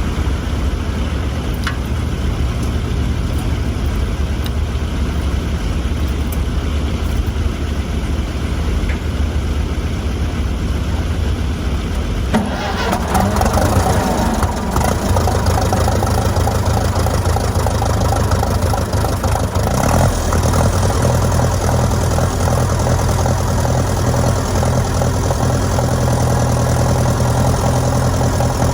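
An engine running steadily. It becomes louder and fuller about twelve seconds in.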